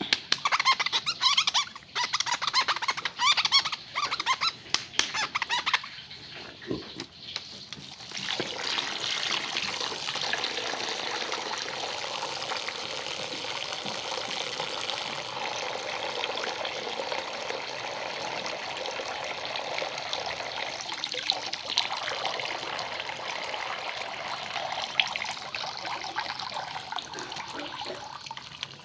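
Water splashing in short, broken bursts for the first several seconds, then a steady stream of running water from about eight seconds in.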